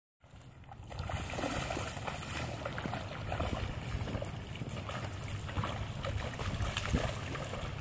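Children's rain boots splashing and sloshing through a large, shallow street puddle: a continuous run of irregular small splashes from wading footsteps in water.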